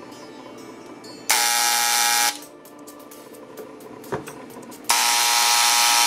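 Electric AC engraver buzzing in two short runs of about a second each, the first about a second in and the second near the end.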